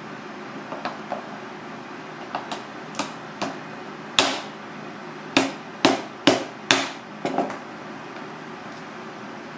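A cooked mud crab's shell cracking and snapping as it is broken open by hand on a cutting board: about a dozen sharp cracks, a few light ones at first, then loudest and quickest in the middle. Under them runs a steady hum.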